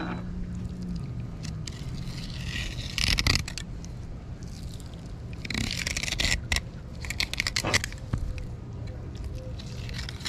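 Fillet knife scraping and slicing along a cero mackerel's backbone and ribs as a fillet is cut free, in several rough strokes.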